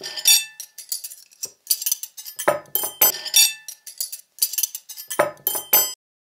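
Dishes and cutlery clinking and clattering: a quick run of hard knocks with short high ringing, in several clusters for about six seconds.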